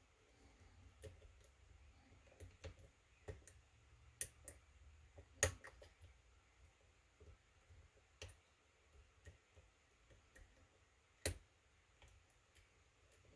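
Lock pick clicking against the pins inside a pin-tumbler kick cylinder as it is picked: scattered small irregular clicks, with two louder ones about five and eleven seconds in.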